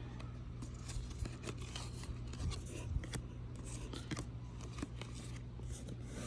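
Baseball trading cards being handled and flipped through one after another: light, irregular clicks and slides of card stock, over a steady low hum.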